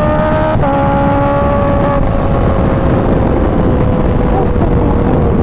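Supercharged inline-four engine of a 2016 Kawasaki Ninja H2 with an aftermarket exhaust, running at freeway speed. Its pitch climbs slightly, drops suddenly about half a second in as it shifts up a gear, then slowly sinks, with wind rush underneath.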